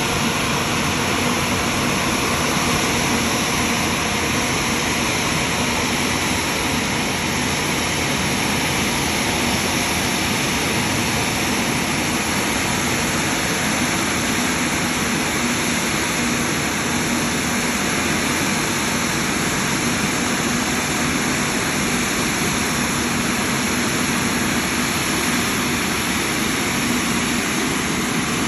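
Jet airliner engines running with a steady, even rush and a faint low hum, holding at the same loudness throughout.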